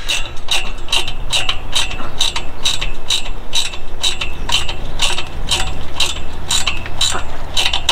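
Ratchet wrench clicking in steady strokes, about three clicks a second, as a half-inch lock nut is snugged up on a bump-stop bracket bolt at the trailer axle's U-bolt.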